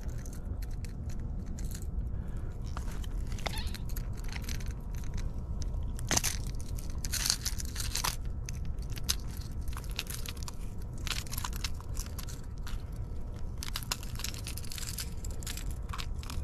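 Wind rumbling on the microphone, with scattered crackles and clicks from hands handling a striped bass and unhooking a crankbait lure from its mouth. The clicks are thickest about six to eight seconds in and again near fourteen seconds.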